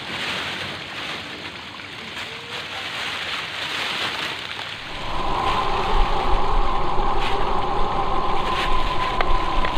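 A steady rush of water, joined about halfway through by a louder, steady motor-like drone with a low rumble.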